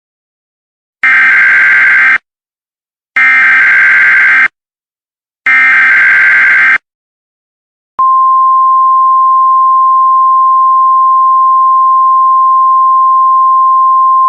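Emergency Alert System header tones. Three harsh digital data squawks of about a second each, evenly spaced, then a single loud steady attention tone that starts about eight seconds in and holds, heralding an emergency broadcast message.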